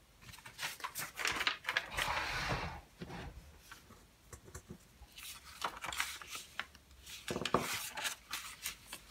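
Small objects being moved and handled on a desk: scattered clicks and knocks, with a rustling about two seconds in.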